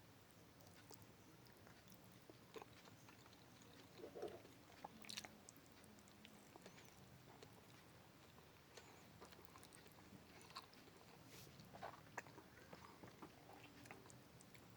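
Faint close-up chewing of pepes ikan mas, spiced carp cooked in banana leaf, with scattered small wet mouth clicks and smacks.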